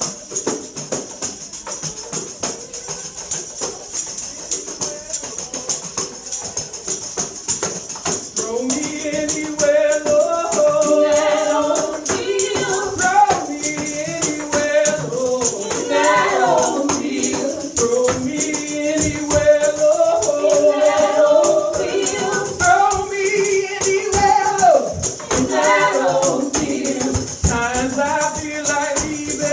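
Tambourines shaken and struck in a steady rhythm, joined about eight seconds in by several voices singing together in close harmony, gospel-style.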